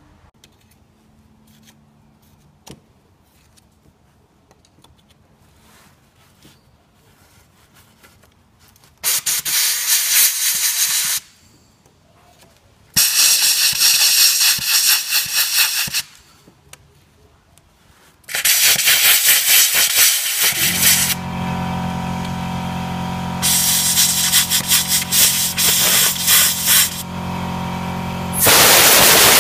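Compressed-air blow gun blowing off engine parts in long bursts of hiss, three of them in a row after a quiet stretch of faint clicks. About two-thirds of the way through, a motor starts and runs with a steady hum while more blasts of air follow over it.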